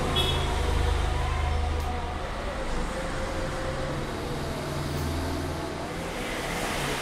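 A metal spoon scoops macaroni mixture out of a frying pan into aluminium foil cups, making light scrapes and clinks. Under it runs a low rumble that swells in the first two seconds and again about five seconds in.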